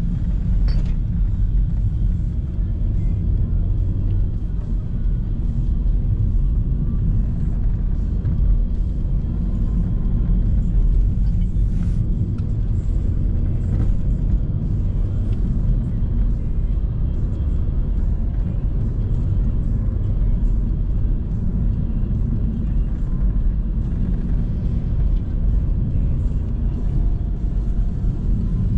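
Steady low rumble of tyre, road and engine noise inside the cabin of a Renault Megane 4 driving at speed.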